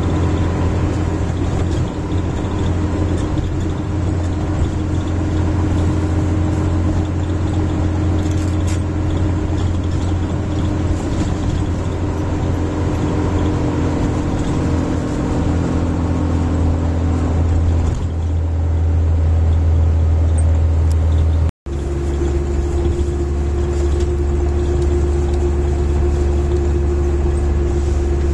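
Van engine and road noise heard from inside the cabin while driving, a steady low drone. About two-thirds of the way through the sound drops out for an instant and the engine note comes back at a slightly different pitch.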